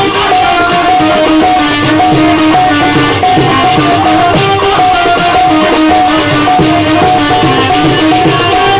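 Instrumental Pothwari folk music: a harmonium holds a stepping melody over plucked long-necked string instruments and steady hand-drum strokes.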